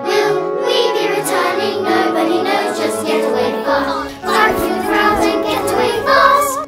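Children's voices singing a song together over instrumental accompaniment.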